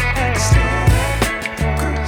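Background music with a steady drum beat and sustained bass notes.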